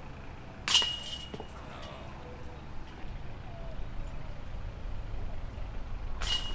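Disc golf disc striking the hanging chains of a metal chain basket twice, once about a second in and again near the end. Each hit is a sharp clank followed by a jangling, ringing shimmer that fades over about a second.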